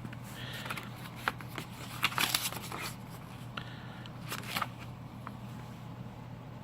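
Cardboard packaging of a charging cable being handled and opened: scattered rustles, scrapes and small clicks, the busiest stretch about two to three seconds in, over a steady low hum.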